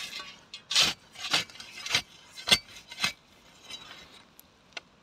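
A heavy steel shovel scraping and chopping into loose, stony dump soil, about five strokes roughly half a second apart, with small stones and glass chinking, then a shovelful of spoil spilling back down.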